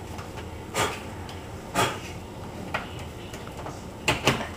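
Laptop battery pack being handled and fitted into its bay under the laptop: about five short hard-plastic clicks and knocks, the last two close together near the end as it is pressed into place.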